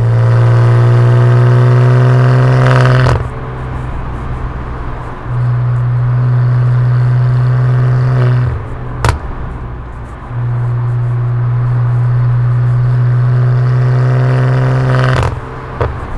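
BMW F80 M3's twin-turbo straight-six through a QuickSilver active-valve exhaust with the valves open, pulling hard: a loud, low exhaust drone with slowly rising pitch in three long spells, each cut off sharply, about 3, 8½ and 15 seconds in. One sharp crack about 9 seconds in.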